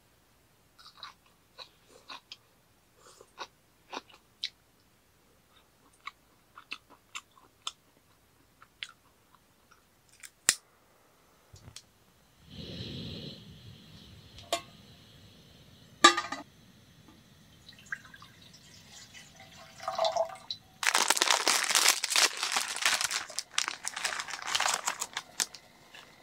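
A person chewing crunchy food, with small scattered crunches and clicks. Then a portable gas burner runs with a steady hiss, with one sharp click about sixteen seconds in. For the last five seconds an instant-ramen foil packet crinkles loudly as it is handled.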